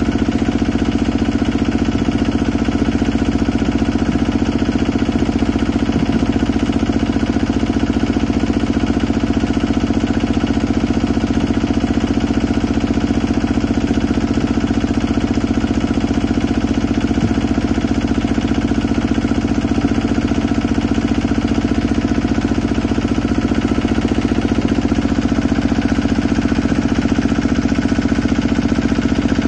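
Small engine running steadily at one constant speed, with a fast even pulse, driving the pump that forces water down the drill pipe, flushing mud up around the pipe as it is turned into the ground.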